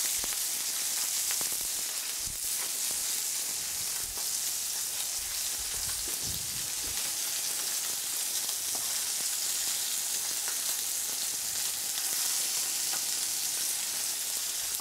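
A turbot fillet frying skin side down in olive oil in a frying pan, a steady sizzle.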